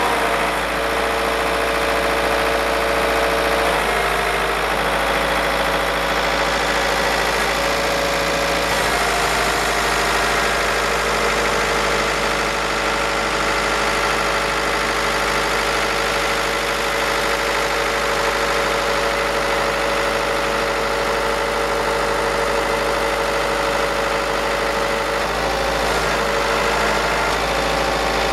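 Tadano Super Z250 truck-mounted crane working: the truck's engine runs steadily, driving the crane's hydraulics while the telescopic boom retracts and raises. A steady whine sits over the engine and shifts in pitch a few times, around 4 seconds in, 9 seconds in and near the end.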